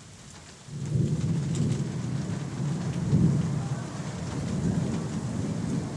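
Thunder rumbling with rain, breaking in suddenly a little under a second in and rolling on steadily.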